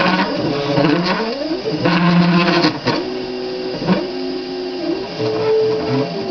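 Stepper motors of a homemade CNC pen plotter driving a marker over paper, whining in pitched tones that hold, jump and glide up and down as the pen traces small curves, with a few short ticks at changes of direction.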